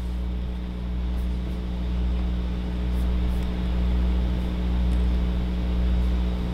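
Steady machine hum with a fan-like rush of noise, with a few faint clicks.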